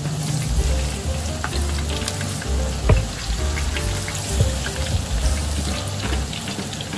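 Tempura deep-frying: hot oil sizzling and bubbling steadily around battered eggplant and shrimp in a wok, with occasional sharp pops as drops of batter are drizzled by hand into the oil.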